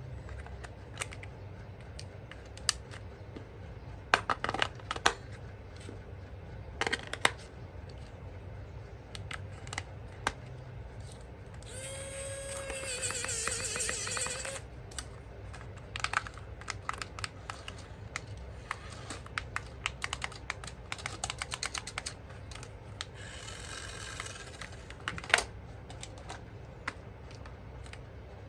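Scattered clicks and quick rattling runs of small hard plastic parts being handled. About twelve seconds in comes a brief wavering whine, over a steady low hum.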